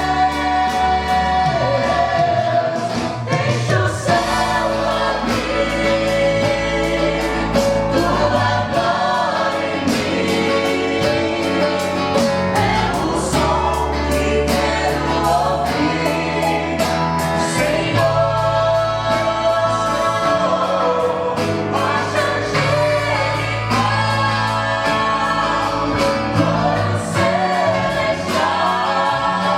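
A vocal group sings a gospel song in harmony, over held bass notes and a steady beat.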